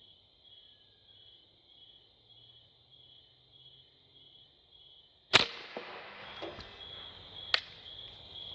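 Sam Yang Dragon Claw .50 calibre air rifle firing a round ball into a clay block: one loud sharp crack a little past halfway, a lingering rush of noise after it, and a second, smaller sharp click about two seconds later. Under it, an insect's high-pitched call pulses about four times a second.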